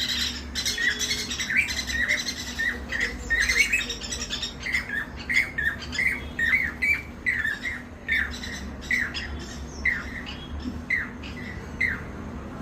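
Small birds calling at a balcony: a run of short, falling call notes repeated about twice a second, with a rougher, denser chatter in the first few seconds.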